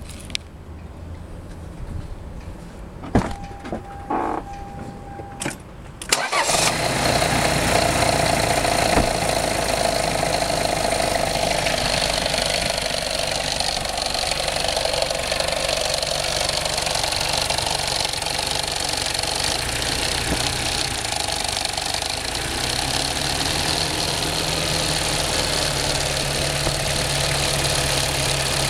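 Toyota 2L-TE 2.4-litre four-cylinder turbodiesel: a few clicks and a short steady beep, then the engine starts about six seconds in and idles steadily with a constant high whine over the running. After several hours of highway driving, the owner calls the sound bad.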